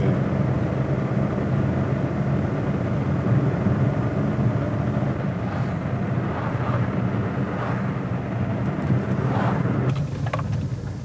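Car engine and tyre noise heard from inside the cabin while driving: a steady low hum with road noise, easing off a little near the end.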